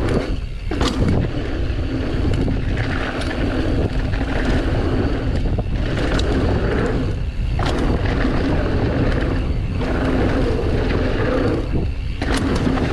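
Mountain bike riding down a dirt trail: a steady rush of wind and tyre noise, with a few sharp knocks from bumps along the way.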